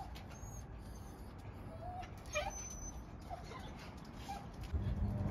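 A dog whimpering in short, high whines, one sliding sharply upward about halfway through. A low steady hum comes in near the end.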